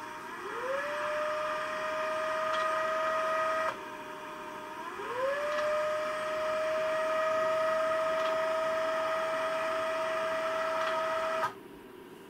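Stepper motor of an SP-668 UHF antenna filter driving its variable capacitors through a gear train, retuning the filter to the bottom of its low range. It whines, rising in pitch as it speeds up and then holding steady, in two runs with a short pause about four seconds in, and cuts off abruptly near the end.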